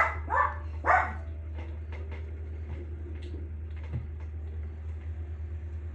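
A dog barks three times in quick succession in the first second, each bark short with a falling pitch, over a steady low hum.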